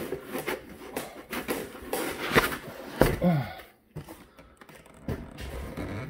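Foam packing and cardboard being handled as packing material is pulled out of a shipping box: quick rustling and scraping with two sharp knocks around two and a half and three seconds in, then quieter handling.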